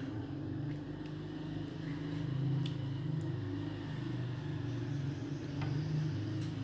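A steady low mechanical hum, with a few faint taps of a metal serving spoon against the pan as the chicken is scooped out.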